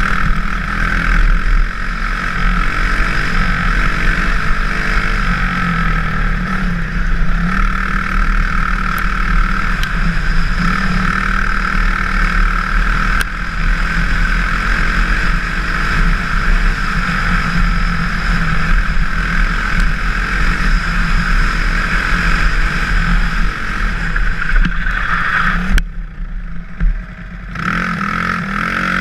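Racing kart's engine running hard through an autocross run, its pitch wavering up and down with the throttle. About 26 seconds in the sound drops away suddenly for a second or so, then comes back.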